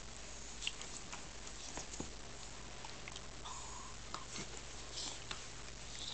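Beagle playfully mouthing a person's hand: soft scattered rustles of fur and skin with small mouth clicks, over a faint steady low hum.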